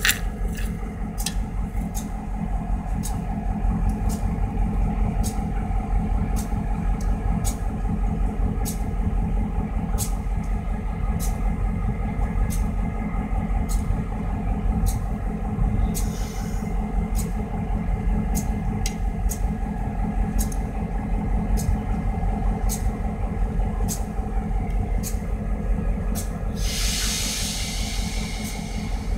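EMD GP38-2 diesel locomotive's two-stroke V16 engine running steadily, with sharp regular ticks about one and a half times a second. A short hiss of air comes about 16 s in, and a louder one near the end, like an air brake release.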